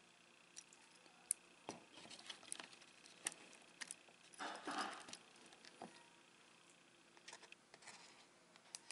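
Faint clicks and light metallic clinks of a steel watch bracelet's links being handled and seated in a plastic pin-pushing holder, with a denser run of clinking and rustling about four and a half seconds in.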